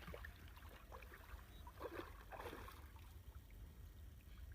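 Faint sloshing and trickling of pond water, with a couple of soft splashes about two seconds in, over a low steady rumble.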